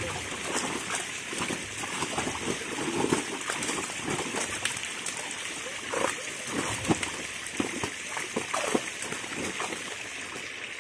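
Many fish thrashing and splashing in the shallow water of a drawn-in seine net, with hands sloshing among them: a steady run of irregular splashes.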